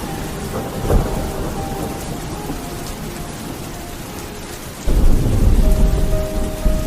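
Steady rain with thunder: a short crack about a second in, then a sudden loud, low rumble of thunder from about five seconds in.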